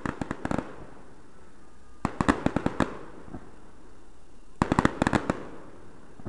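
Fireworks going off in clusters of quick sharp cracks, three rapid volleys about two and a half seconds apart.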